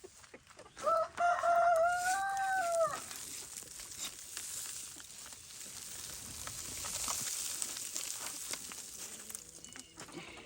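A rooster crowing once, one drawn-out call of about two seconds that rises a little and drops off at the end, followed by a soft crackly rustle.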